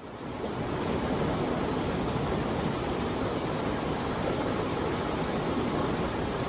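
Clear mountain stream flowing, a steady rush of water that fades in over the first second.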